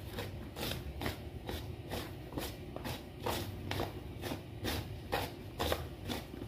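Hands tossing and rubbing damp mushrooms through seasoned flour in a plastic basin to coat them, a soft rustling stroke about three times a second.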